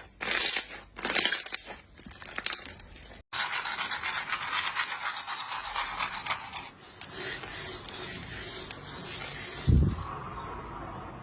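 Slime being squeezed and kneaded by hand, crackling and squishing in repeated strokes. The sound cuts abruptly about three seconds in, then continues as a denser crackle with a low thump near the end.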